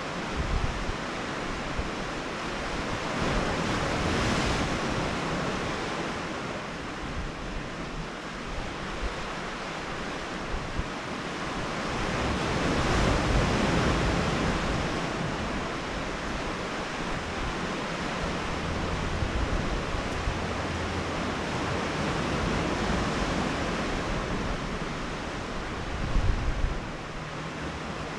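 Sea surf washing against a rocky shore, swelling up about four seconds in and again about halfway through, with wind buffeting the microphone and a brief gust near the end.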